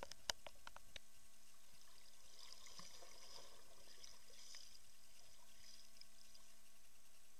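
Faint swirling and bubbling of water stirred by a swimmer, heard underwater through an action camera's waterproof housing, after a few sharp clicks in the first second.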